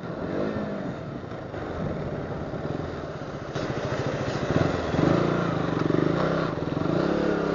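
KTM 200cc single-cylinder motorcycle engine running as the bike rolls slowly through traffic, getting louder about halfway through.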